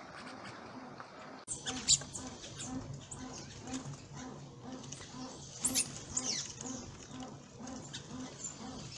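Small birds chirping: sharp high chirps and quick falling whistles. A steady low pulse repeats about two to three times a second underneath. The sound changes abruptly about one and a half seconds in.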